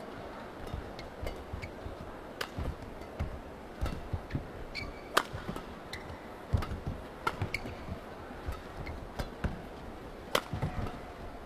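Badminton singles rally: rackets strike the shuttlecock with sharp cracks at irregular intervals, and players' shoes thud and squeak on the court mat between the shots, over steady arena hum.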